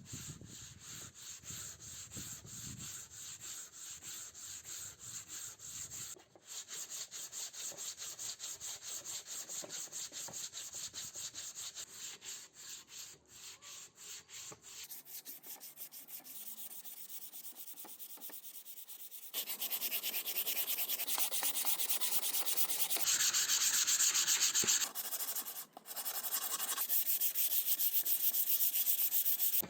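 Sandpaper rubbing on old wood in quick back-and-forth hand-sanding strokes. The sanding gets louder and denser in the last third, with a brief pause partway through.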